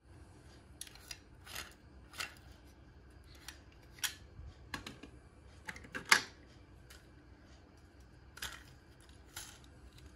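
Toy cars clicking and clacking lightly as hands pick them up and handle them among a collection of other toy cars: scattered short taps, the loudest about six seconds in.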